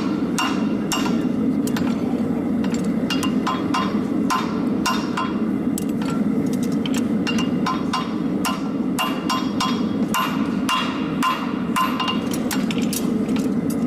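Hammer taps on steel, light and ringing, at an irregular two to four a second over a steady low rushing noise.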